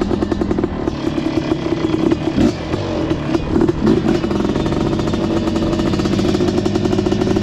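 Suzuki LT500 ATV engine running under throttle while riding on gravel, its pitch rising and falling as the throttle changes.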